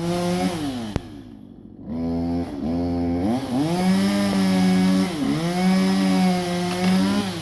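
Chainsaw engine revved hard again and again, its pitch sagging and climbing between bursts. It drops to a lower, quieter note about half a second in and again near the end. A single sharp click comes about a second in.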